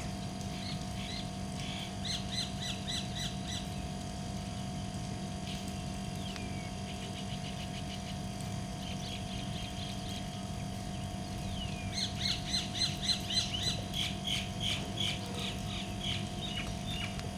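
Birds calling in quick runs of short, harsh chirps, several a second, once near the start and again in a longer, louder run about two-thirds of the way through, over a steady low hum.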